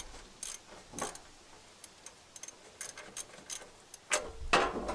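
Irregular light metallic clicks and taps from a wrench working a stuck spark plug loose on an old riding mower engine, with a louder knock about four seconds in.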